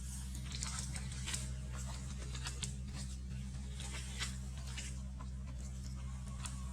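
Irregular light clicks and rustles, several a second and uneven in spacing, over a steady low hum.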